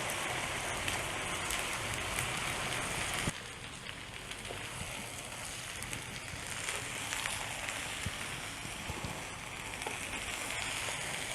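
Basmati rice frying in clarified butter in a large pot, a steady sizzling hiss with small crackles. The sizzle drops suddenly about three seconds in and builds up again toward the end.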